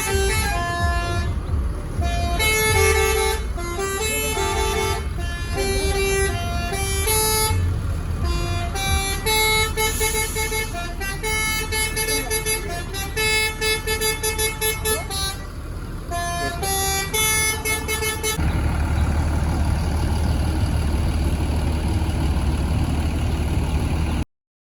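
Telolet bus horns, multi-tone air horns, playing melodic tunes with the notes changing several times a second and several horns overlapping. About 18 seconds in the horns stop, leaving a steady low bus-engine rumble that cuts off abruptly near the end.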